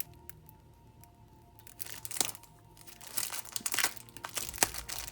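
Nail sticker sheets and their plastic packaging crinkling as they are handled. The crackly rustling starts about two seconds in and is loudest near the end, over faint background music.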